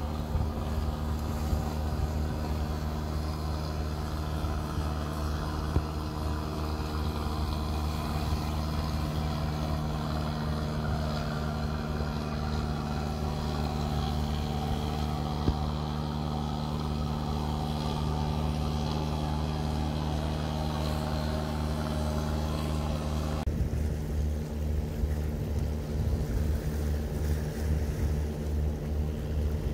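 Kolek fishing boat's engine running steadily as the boat motors past. About three-quarters of the way through the sound changes abruptly, the low end turning uneven and fluttering.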